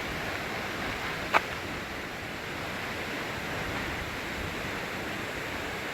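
Waterfall roaring with a steady, even rush of falling water, heard close enough to feel its mist. A single short click about a second and a half in.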